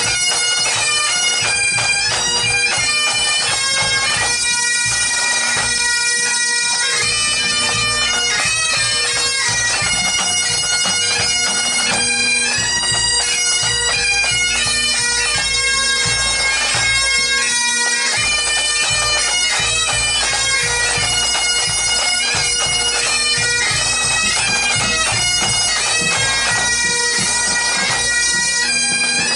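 Pipe band playing on the march: Highland bagpipes sound their steady drones under a chanter melody that steps from note to note, with the band's drums beating beneath.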